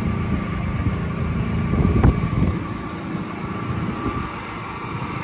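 John Deere 7R310 tractor's diesel engine idling steadily, with a thin steady whine above the rumble. There is one short knock about two seconds in, and the sound grows somewhat quieter in the second half.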